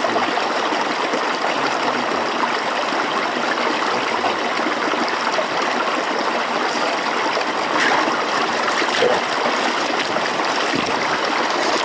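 Water running steadily through and past a beaver dam of piled sticks, a continuous stream-like rush.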